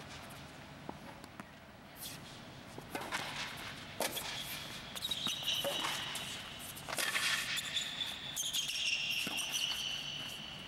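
Tennis rally on a hard indoor court: sharp racket-on-ball hits and ball bounces about every second, with high squeaks of tennis shoes on the court surface coming and going.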